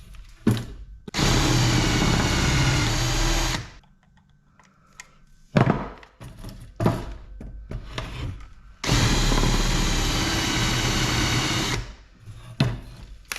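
Power drill drilling out rivets in an aluminum crutch handle, in two runs of about two and a half and three seconds, with knocks and clicks from handling the crutch between them.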